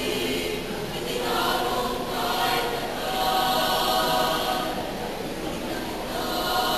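Teenage choir singing a Tagalog song in harmony, in long held chords that swell about halfway through.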